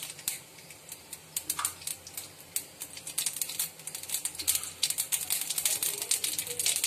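Mustard seeds beginning to pop and crackle in hot oil: scattered pops at first, coming faster and louder after about three seconds. This is the start of tempering, the sign that the oil is hot enough.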